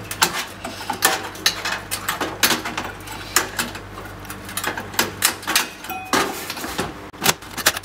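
Irregular clicks, taps and light metallic knocks of hands working on a motherboard inside a steel PC case as it is fastened down onto its mounts.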